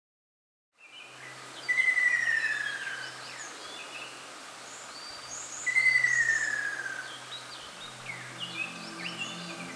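Ruddy kingfisher calling twice, each a long descending call of about a second and a half, over scattered high chirps from other birds. Soft music begins to come in near the end.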